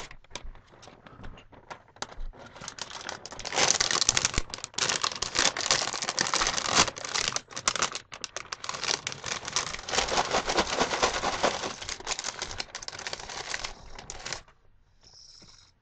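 A plastic snack bag inside a cardboard cracker box being pulled open and handled, crinkling and tearing. There are scattered crackles at first, then a long stretch of loud, dense crinkling that stops shortly before the end.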